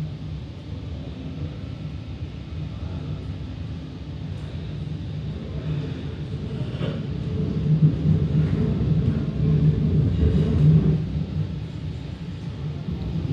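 Low, steady rumble of a TCDD E32000 (Marmaray) electric commuter train, heard from inside the passenger car as it runs. The rumble swells louder from about seven to eleven seconds in, then eases.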